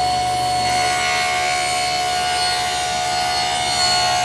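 Table saw running with a steady whine while its blade rips lengthwise through a wooden board.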